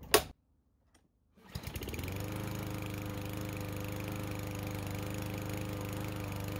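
Craftsman M270's 159 cc gas mower engine, pull-started: a sharp snap at the very start, then the engine catches about a second and a half in, revs up and runs steadily at an even pitch. Near the end its pitch drops as it winds down.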